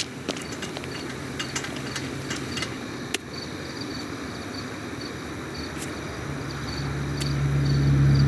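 Film sound-effects ambience: crickets chirping in short repeated trills over a low steady hum, with a few light clicks. Over the last couple of seconds a vehicle engine grows louder as it approaches.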